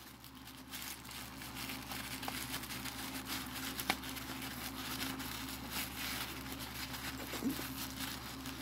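White packing paper crinkling and rustling as it is pushed and stuffed into a small cardboard box, over a steady low hum.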